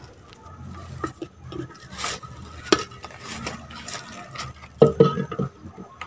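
Plastic bag rustling and hard plastic parts clicking and knocking as the filter and cover are pulled out of a handheld vacuum's clear dust bin. The clicks are scattered, with the loudest cluster about five seconds in.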